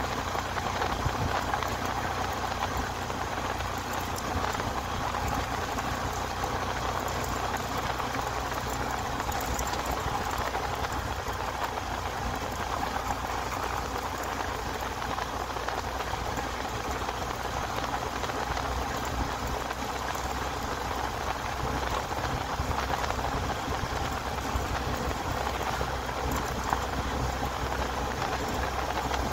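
Steady rush of wind buffeting a handlebar-mounted phone microphone on a moving motorcycle, with a low rumble from the bike underneath.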